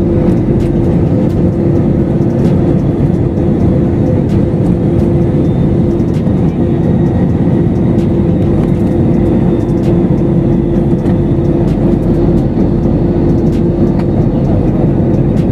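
Jet airliner in flight, heard from inside the cabin: the engines and rushing air make a loud, steady, deep rumble with a constant hum in it.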